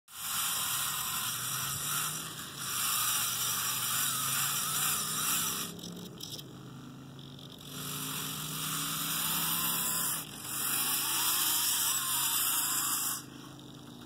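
Small electric drive motor and gears of a motorized toy Cat skid steer whirring in three runs: a long one of about five seconds, then after a pause two shorter ones with a brief break between, as the toy moves.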